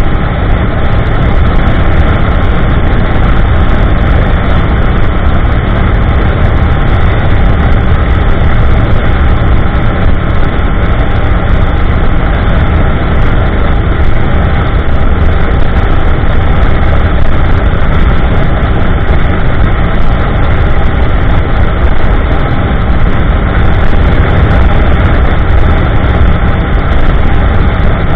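2015 Yamaha YZF-R1M's crossplane inline-four running steadily at cruising speed through an Akrapovic slip-on exhaust with an MJS link pipe and factory headers.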